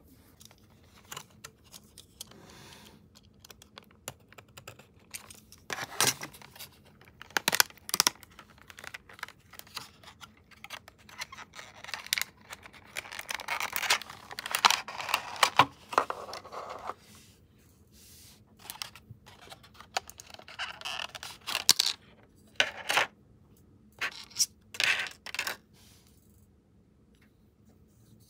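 Clear plastic boxes of Sanrio lip cream being handled and unwrapped: scattered clicks and taps of hard plastic, with a longer stretch of crinkling plastic wrap about halfway through.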